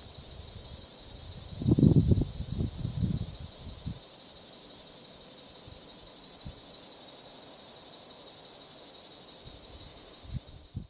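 Cicada singing: a steady, high, finely pulsing buzz. From about one and a half to three and a half seconds in, a run of low thumps sits under it and is the loudest part.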